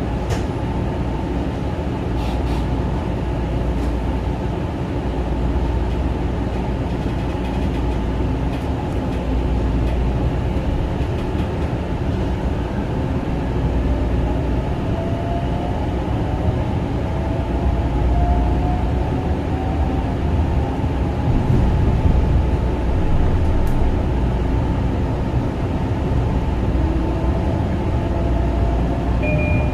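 Kawasaki M9 electric multiple-unit train running, heard from on board: a steady low rumble of wheels on rail, with a faint whine that rises in pitch through the second half.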